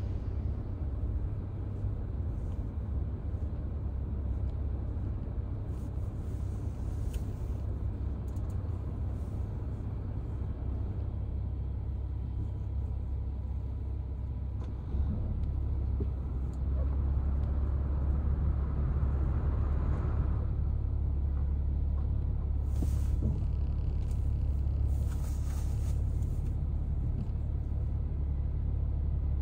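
Car's engine and road rumble heard from inside the cabin while creeping in stop-and-go traffic: a steady low rumble that grows louder about halfway through, with a few brief hisses near the end.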